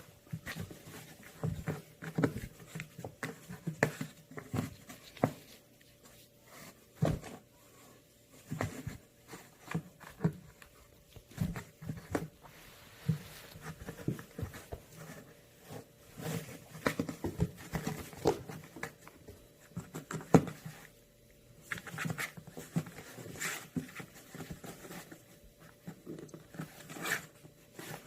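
Kittens playing in and around a box, pawing through its small holes: irregular scratching, pattering and light taps.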